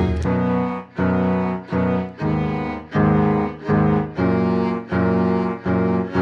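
Music from the electronic pop track: the drums drop out, leaving a low, cello-like string part that plays a steady series of separate held notes, about one every two-thirds of a second.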